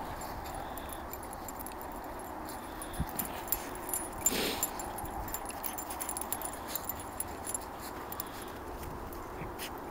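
Two dogs, a corgi and a small terrier-type dog, playing in snow: scattered crunching clicks of steps in the snow, with a short dog vocalization about four seconds in, the loudest sound.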